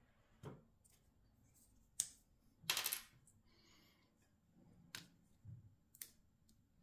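Small hard plastic objects clicking and knocking against a hard tabletop as a two-part epoxy syringe is picked up and handled. There are a few sharp separate clicks and a short rattle about three seconds in.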